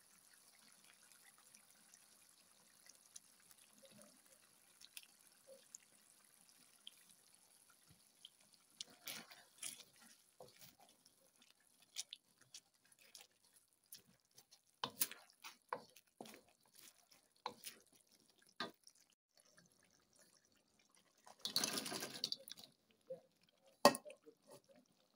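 Wooden spatula stirring simmering sauce in a non-stick wok: a faint steady hiss at first, then scattered light knocks and scrapes. About three-quarters of the way through comes a denser clatter lasting about a second, and near the end a single sharp knock.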